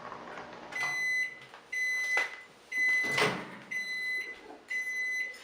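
Magic Chef microwave oven beeping at the end of its cycle: about five long, high beeps on one pitch, roughly one a second, with a couple of sharp clicks in between.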